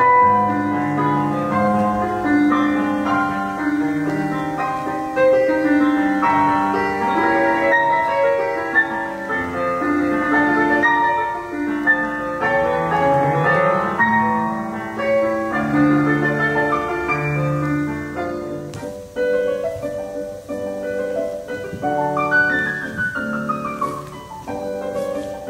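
Solo piano music in a classical style, the usual accompaniment for ballet barre exercises, playing a steady run of notes. Near the end it plays a quick descending run.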